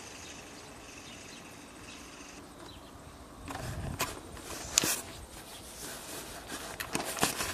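Footsteps crunching on railway ballast gravel, starting about three and a half seconds in as an uneven run of sharp crunches and knocks. Before them, a faint steady high-pitched hum.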